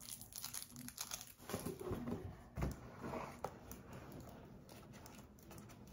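Fingernails picking and scratching at packing tape on a cardboard box: faint irregular scrapes and small taps, with one firmer tap about two and a half seconds in.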